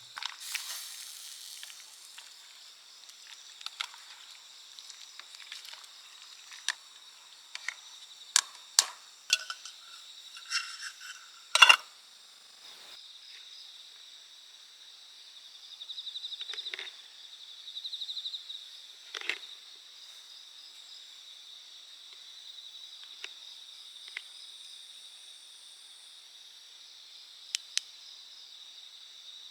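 Insects chirring steadily in a high, even drone, with scattered sharp clicks and one loud snap about midway.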